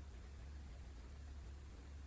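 Quiet room tone: a steady low hum under a faint hiss.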